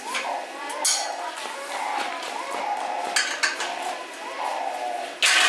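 Metal tools and parts clinking and knocking: several sharp metallic strikes, the loudest near the end.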